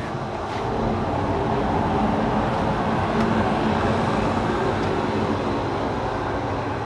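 Steady engine drone with a low hum running under it, a little louder after about a second in.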